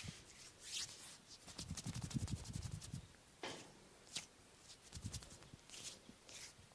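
Hands massaging a bare back. A rapid run of light taps with dull thuds comes between about one and a half and three seconds in, then single slaps and strokes on the skin about once a second.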